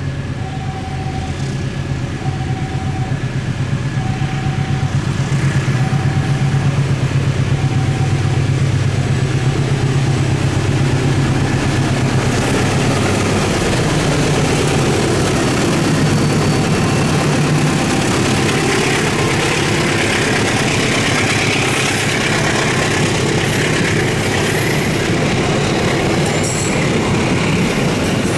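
KAI CC 206 diesel-electric locomotive running under power as it passes, a steady deep engine drone. A short beep repeats about once every second and a quarter for the first eight seconds or so. From about two-thirds of the way in, the engine drone gives way to the rolling noise of the passenger carriages' wheels on the rails.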